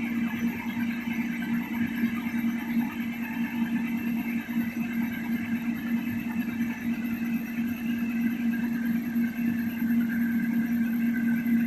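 Heavy diesel machine engine running steadily at an even speed.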